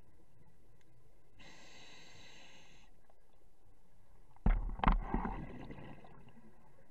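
Scuba diver breathing through a regulator underwater: a hissing inhalation about a second and a half in, then a loud burst of gurgling exhaled bubbles about four and a half seconds in.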